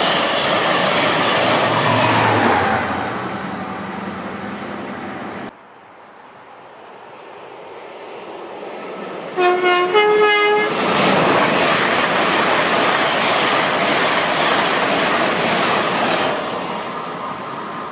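A Class 43 HST passing at speed, its noise fading away. After a cut, a Class 801 Azuma electric train approaches, sounds a two-note horn, a lower note then a higher one, about ten seconds in, and rushes past.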